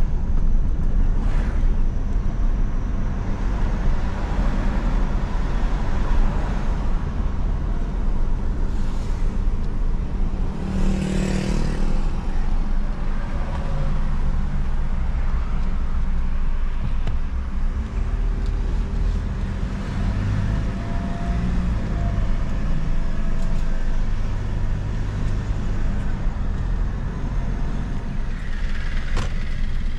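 Car cabin noise while driving: steady low engine and road rumble, with a louder swell of noise about eleven seconds in.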